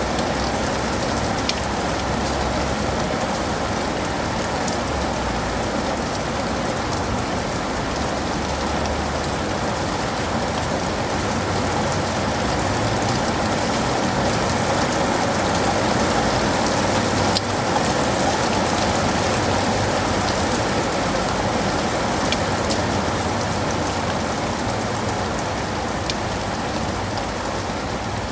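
Steady rain falling on leaves and pavement, a constant hiss with scattered individual drops ticking through it.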